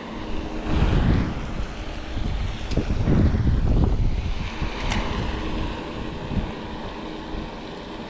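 Wind buffeting the microphone in two strong low gusts, one about a second in and a longer one from about the middle, over a faint steady hum.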